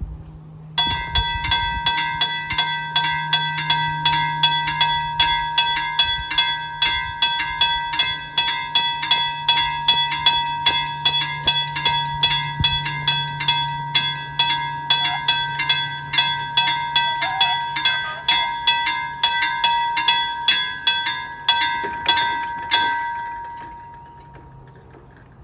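Level-crossing warning bell ringing in rapid, even strokes, starting about a second in, while the barriers come down. It stops about 23 seconds in, once the barriers are down, and rings away.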